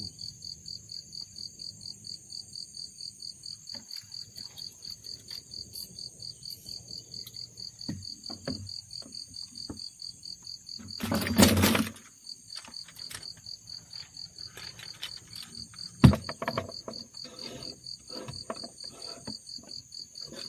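Insects chirping steadily in a pulsing rhythm of about three pulses a second, with a steady higher hum above. About halfway through there is a loud noisy burst lasting about a second, and a few seconds later a single sharp knock.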